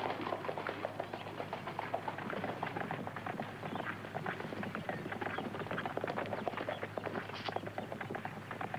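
Horse hooves on a dirt trail: a rapid, continuous run of hoofbeats from riders on the move.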